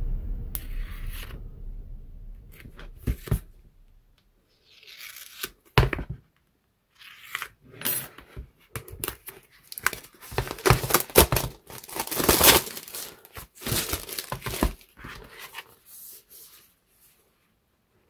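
Plastic shrink-wrap being picked open and torn off a cardboard model-kit box: irregular crinkling tears and rustles that start a few seconds in, are busiest in the middle and stop shortly before the end.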